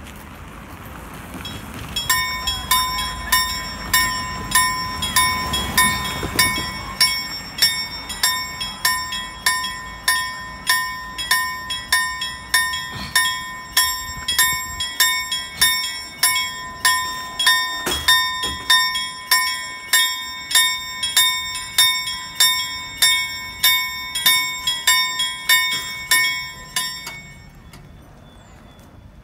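Swedish level-crossing warning bell, the dome bell on top of the crossbuck post, struck at a steady pace of a bit under two strokes a second and warning of an approaching train. It starts about two seconds in and stops a couple of seconds before the end.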